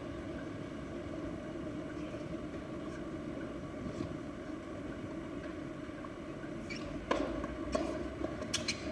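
A steady low background hum. From about seven seconds in come a few sharp, separate knocks of a tennis ball being bounced or struck on court.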